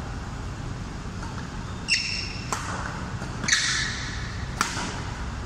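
Badminton rally: sharp smacks of rackets hitting the shuttlecock, two of them about two seconds apart, with brief high-pitched squeaks of shoes on the court mat in between, in a large echoing hall.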